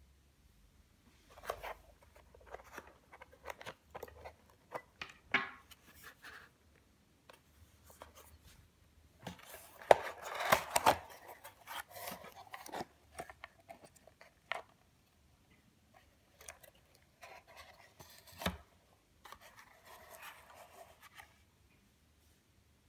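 Handling noises from a small hand-built control box as it is picked up, opened and set back down: irregular clicks, rubs and scrapes, busiest about ten seconds in.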